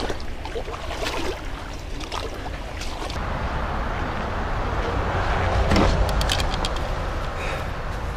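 Shallow creek water running, then a steady rushing noise with a deep rumble and a few short clicks and knocks about six seconds in.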